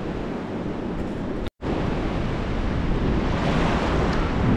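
Sea surf washing on the beach, with wind buffeting the microphone. The sound cuts out for an instant about a second and a half in.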